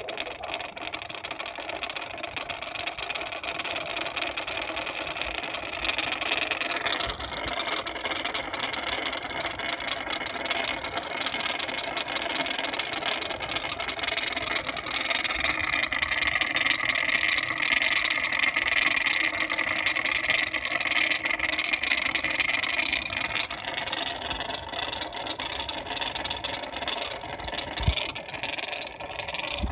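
Homemade magnetic stirrer's small electric motor running under its plastic cover, a steady whir. The sound shifts about six seconds in, then grows louder and brighter for several seconds past the middle before easing back near the end, as the motor speed is changed.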